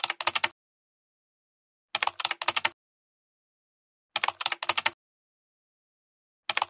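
Keyboard typing sound effect: short runs of about eight quick keystroke clicks, each run lasting under a second, repeated about every two seconds with silence between.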